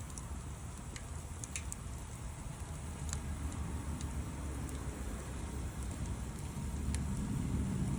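Campfire burning, with scattered sharp crackles and pops of the wood over a steady low rumble that swells near the end.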